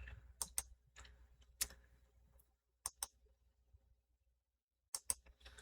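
Computer mouse clicking, a few sharp clicks spread out, several of them in quick pairs, against low room hum.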